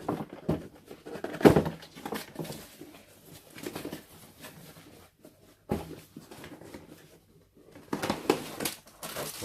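Hand-handling of a cardboard product box being untaped and opened: irregular rustling, scraping and small knocks, with a louder knock about one and a half seconds in and a busier stretch of rustling near the end.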